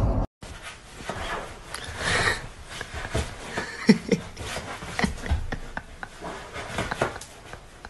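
Rustling and scraping of a fluffy pet scrambling across sofa cushions, with scattered small knocks and one sharp knock about four seconds in.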